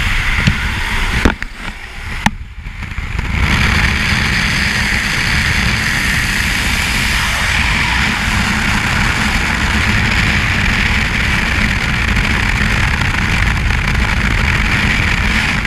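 Steady rush of slipstream wind and aircraft engine noise at the open door of a skydiving plane, buffeting the camera's microphone. It dulls briefly a second or two in, with two sharp knocks, then comes back loud and steady.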